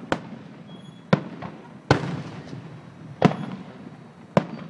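Fireworks going off: about five sharp bangs at uneven intervals, with a couple of fainter pops between them, each bang trailing off in a rumble.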